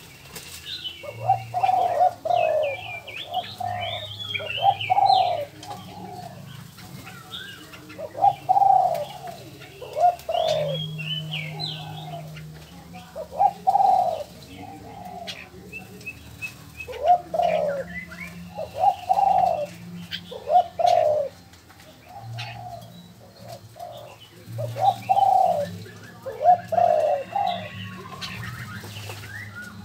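Doves cooing over and over, a call every second or two, with small birds chirping at a higher pitch in between.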